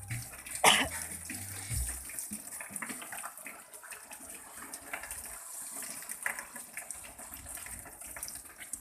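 Water running and splashing, with low thumps in the first two seconds, a sharp knock just under a second in, and scattered small clicks.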